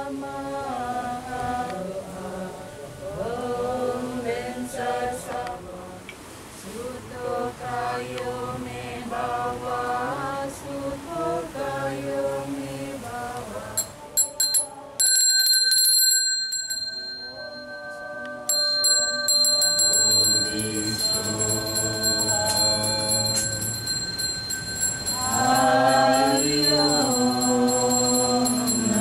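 Voices singing a slow Balinese devotional chant in long, sliding notes. From about halfway through, a priest's hand bell (genta) rings continuously with a high, steady ring. The singing stops for a few seconds while the bell rings alone, then resumes under it.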